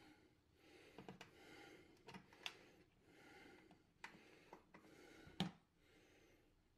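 Near silence with a few faint, short clicks and taps, the loudest just after five seconds in, as screws are handled and set by hand into the stainless steel edge of a dishwasher door.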